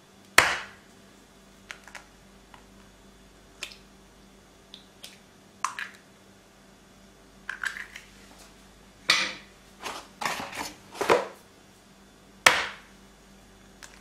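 A series of separate sharp clinks and knocks of kitchenware being handled by hand, each with a short ringing tail. The loudest come about half a second in and near the end, with a quick cluster in between.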